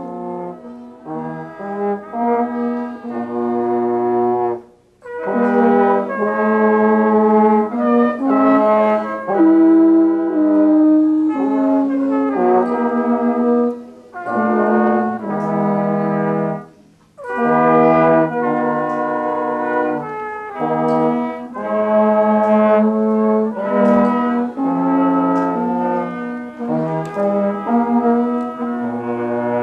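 Brass band of trumpets and a euphonium-type horn playing a tune in sustained chords, with three short pauses between phrases.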